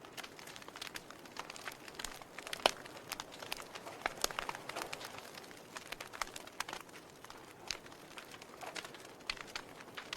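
Burning logs in a fireplace crackling, with irregular snaps and pops over a faint hiss. One pop about three seconds in is louder than the rest.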